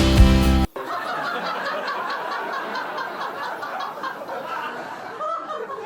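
Acoustic guitar music cuts off abruptly under a second in, followed by an indistinct murmur of voices chattering and laughing.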